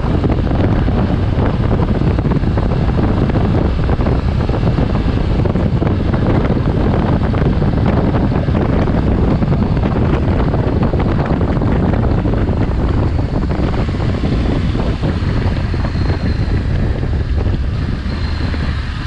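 Wind buffeting the microphone on a moving motorcycle, a loud steady rush with the bike's running noise underneath, easing a little in the last few seconds.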